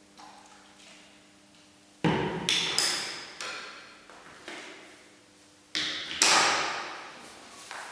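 Plastic make-up compacts and cosmetics clacking as they are picked up, snapped and set down on the hard floor: a run of about seven sharp knocks, each ringing on in an echoing room, starting about two seconds in, the loudest near the end.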